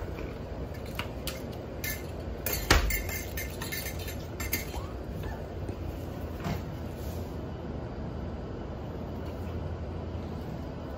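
Scattered clinks and knocks, with one louder thump about three seconds in, from puppies at a door with a hanging potty bell. It settles into a steady low hum after about five seconds.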